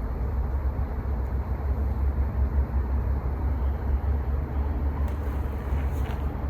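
Steady low rumbling noise, with a couple of faint short rustles near the end.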